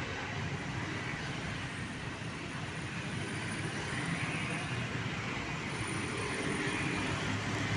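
Steady road traffic: a container semi-trailer truck rolling slowly past with motorcycles riding by, a continuous low engine rumble and tyre noise.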